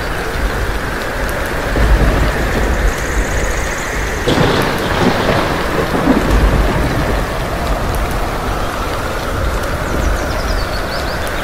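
Heavy rain pouring steadily, with deep rumbles of thunder rolling under it and a sudden louder surge of storm noise about four seconds in. A few faint bird chirps come through, one set near the end.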